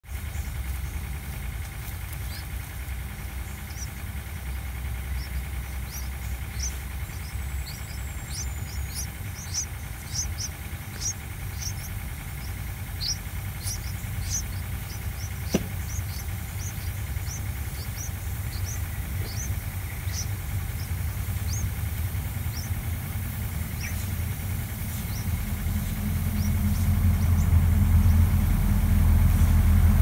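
Yellow-vented bulbul nestlings giving a run of short, high, thin begging calls, about one or two a second, as they beg for food. Under them runs a steady low rumble that grows louder near the end, with one sharp click midway.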